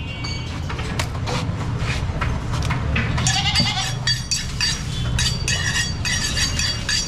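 A goat bleating in wavering, broken calls over a steady low rumble, with scattered sharp knocks in the first few seconds.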